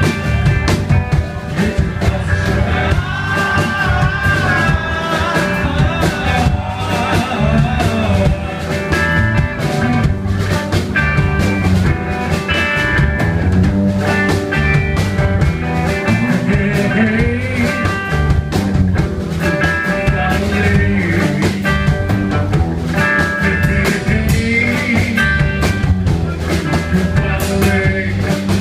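Live rock band playing: electric guitar, bass guitar and a drum kit.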